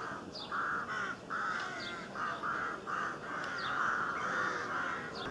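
Birds calling outdoors: a nearly continuous chorus of harsh, repeated calls, with short high chirps falling in pitch about once a second.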